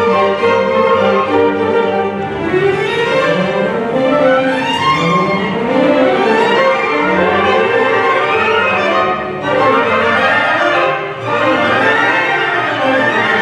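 Symphony orchestra playing, led by the strings, with violins playing runs of notes that climb and fall over the lower strings.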